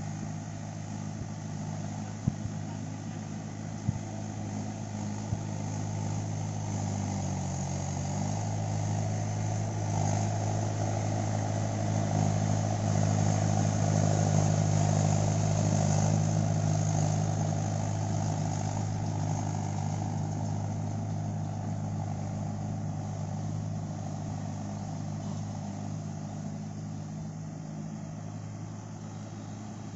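Mahindra tractor's diesel engine running steadily under load while ploughing, growing louder toward the middle and then fading a little, with a few sharp clicks in the first few seconds.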